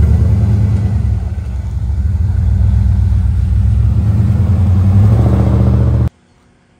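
Dodge Dakota pickup truck's engine running with a deep, steady rumble as the truck pulls away, growing a little louder, then cutting off suddenly near the end.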